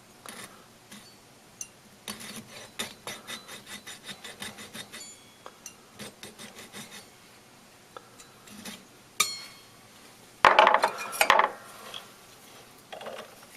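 Small metal hand tools cutting through a link of a gold tennis bracelet: a run of quick, rhythmic scraping strokes, then a few louder metallic clinks near the end.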